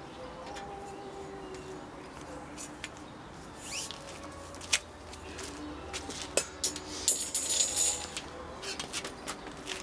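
Scattered sharp clicks and light metallic clinks from a marker pen, tools and a metal sheet being handled on a workbench, with about a second of scraping noise some seven seconds in.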